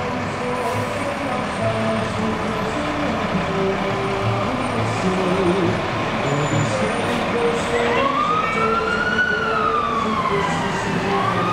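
Fire trucks passing slowly, their engines running. A siren winds up about eight seconds in, wails down, and starts rising again near the end.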